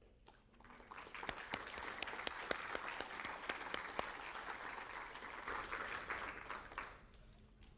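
Audience applauding: the clapping builds up about a second in, holds steady with a few sharp claps standing out, and stops fairly abruptly near the end.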